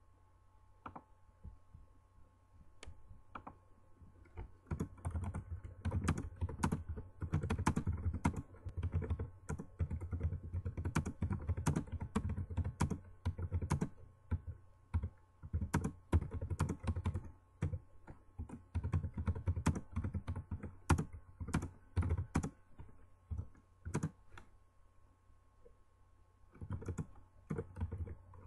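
Typing on a computer keyboard: a few scattered clicks at first, then fast runs of keystrokes with brief gaps, a short pause near the end, and typing again. A faint steady hum sits underneath.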